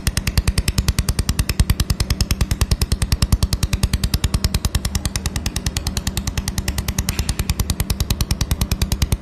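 A 1 kW semiconductor CNC laser welding machine at work: rapid, even ticking about ten times a second over a steady low hum.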